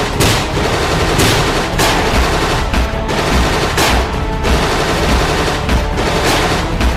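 Background music with a steady beat, mixed with rapid gunfire sound effects.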